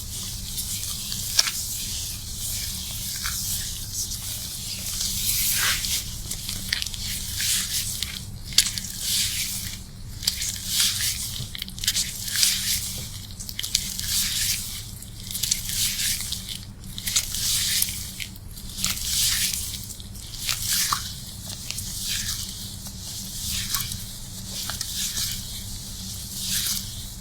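Fingers scrubbing wet, soapy hair and scalp during a shampoo: a crackly, squishing lather sound that swells and fades about once a second with the strokes, over a low steady hum.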